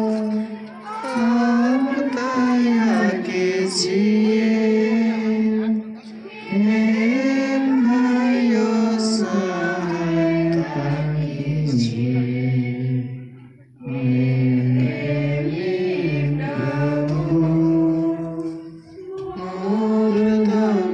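Slow devotional singing: voices holding long, gliding notes in phrases, with short breaks between phrases.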